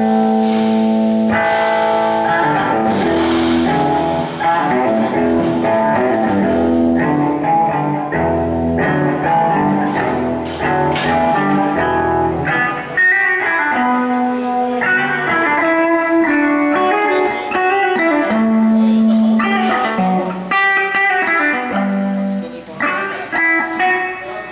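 Blues-rock instrumental music led by guitar over a moving bass line, dropping off near the end.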